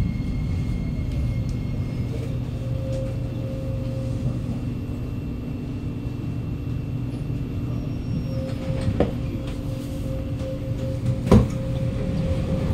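Kawasaki Nippon Sharyo C751B metro train braking to a stop, heard from inside the car: a steady low rumble with a faint falling motor tone in the first couple of seconds. A sharp knock near the end, as the doors open.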